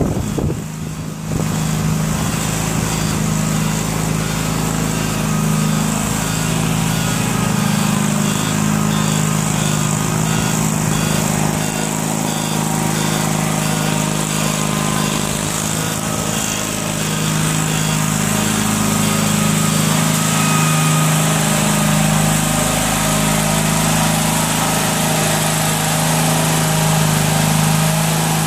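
The small engine of an Air Horse aircraft tug, built on a Wheel Horse garden tractor, running steadily as the tug is driven. It gets louder about a second in and shifts slightly in pitch now and then.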